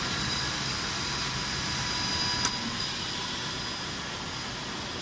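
Powder-liquid mixing machine running steadily, a noisy mechanical hum with a high, steady whine over it. A single short click about two and a half seconds in.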